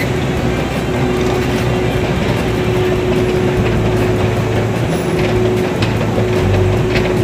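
Moscow metro escalator running during a long ride down its inclined tunnel: steady mechanical running noise with a constant hum.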